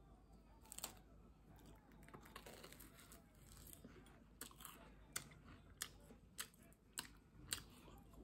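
Faint crackling of a flaky croissant's crisp crust as it is picked up and pressed in the fingers, with a run of short sharp crackles in the second half.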